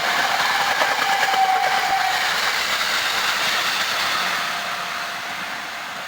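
A Hankyu electric train passing over a level crossing, its wheels clattering over the rail joints, with the noise easing off in the last couple of seconds. The crossing's electronic alarm rings steadily through it.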